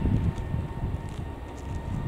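Airbus A350-900 jet engines (Rolls-Royce Trent XWB) rumbling during the landing roll just after touchdown, with a steady high whine over the rumble; the low rumble fades over the first second.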